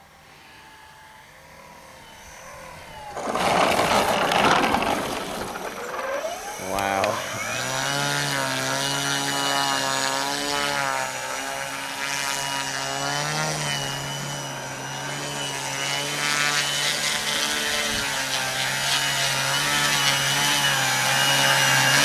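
A 6S electric RC aerobatic plane landing: a burst of rough rolling noise about three seconds in as it touches down. Then its electric motor and propeller spin up and run at a steady low-throttle whine, winding down at the very end.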